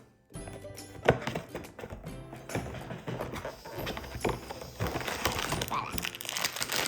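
Background music with irregular tapping and handling noises from a cardboard blind box being turned over and handled, a sharp tap about a second in.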